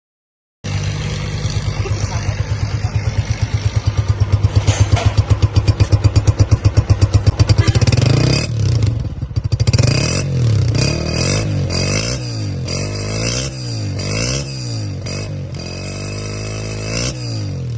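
Honda CG125's single-cylinder four-stroke engine idling with an even, pulsing exhaust beat, then revved in a series of short throttle blips, each rising and falling, with a longer rev near the end.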